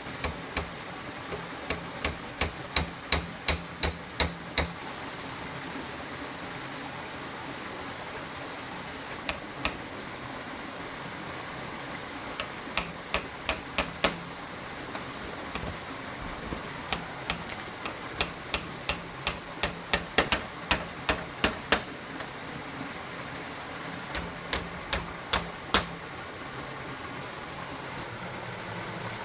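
Hammer blows on bamboo, cutting into green bamboo with a blade, in runs of quick even strikes about three a second with pauses between. A steady rush of stream water runs underneath.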